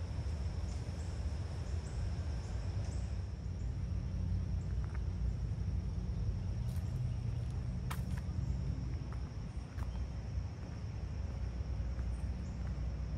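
Outdoor ambience of insects chirring in a steady high drone over a low rumble, with a few faint clicks about eight seconds in.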